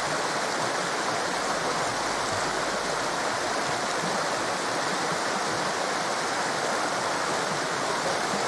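A torrent of rushing water giving a steady, unbroken hiss, with no changes or splashes standing out.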